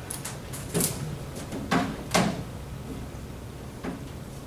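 Handling noise at a lectern: a string of short, sharp clicks and knocks from a tablet and its connection being worked, the loudest about two seconds in.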